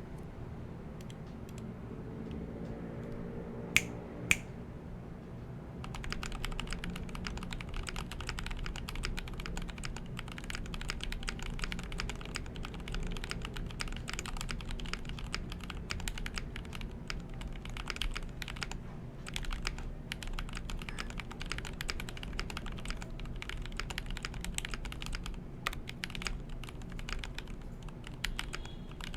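Typing on a GMMK Pro mechanical keyboard with an aluminium plate and its foam removed, fitted with lubed Feker (Halo) stems in Gateron Milky Top switch housings. A few scattered keystrokes and two loud sharp clicks about four seconds in, then steady fast typing from about six seconds in.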